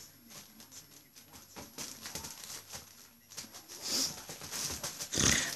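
A kitten scrabbling and shifting about inside a fabric play tunnel: a run of short scratchy rustles from the tunnel's lining, with a louder rustle about four seconds in and a fuller rustle and thump near the end.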